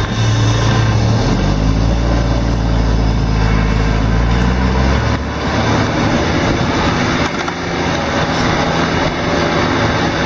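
Off-road 4x4's engine heard from inside the vehicle, rising in pitch as it pulls away and dropping off about five seconds in. After that comes a rougher rumble of the vehicle rolling over a rutted dirt track.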